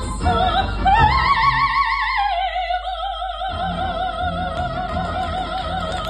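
Solo soprano singing an operetta song into a microphone with orchestral accompaniment. About a second in her voice climbs to a high note, then drops slightly and holds a long note with wide vibrato.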